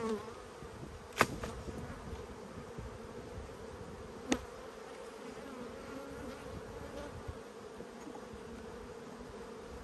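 Honeybees buzzing in a steady drone around an open hive. Two sharp clicks cut through it, about a second in and about four seconds in.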